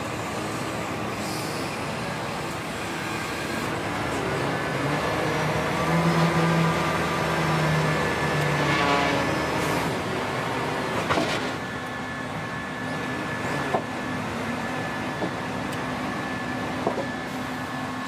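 Diesel engine of a Scania R480 eight-wheel hook-lift truck running while the hydraulic arm tips its container, the engine held at higher revs for a few seconds about a third of the way in. A few sharp knocks come in the second half.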